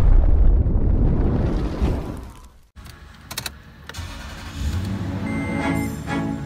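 A deep rumbling sound effect fades out and stops suddenly. Then come a few clicks of the ignition key and a Toyota engine starting and settling into a steady idle, with background music beginning near the end.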